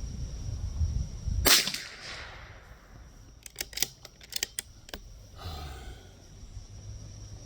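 A single sharp shot from a Bergara B14R .22LR rifle about a second and a half in, with a short ringing tail. About two seconds later comes a quick series of small metallic clicks as the bolt is worked.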